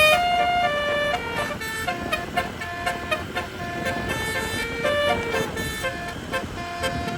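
Indonesian bus telolet horn, a multi-trumpet air-horn set, playing a quick melody of short stepped notes.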